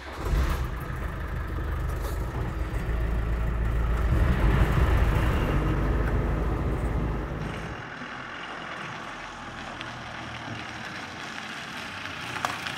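Land Rover Defender engine running as the vehicle pulls away, a heavy low rumble for the first seven or so seconds. It then drops suddenly to a quieter, more distant running sound.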